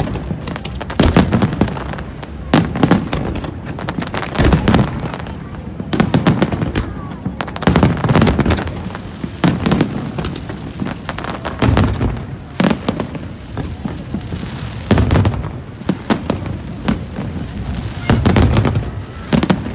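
Aerial fireworks display: a continuous run of sharp bangs from bursting shells, with heavier deep booms every few seconds.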